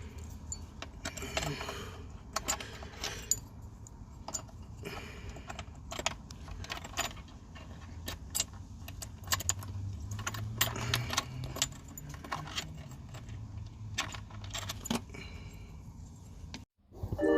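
Metal parts and hand tools clinking, tapping and knocking in an irregular run of sharp clicks, some ringing briefly, over a low steady hum.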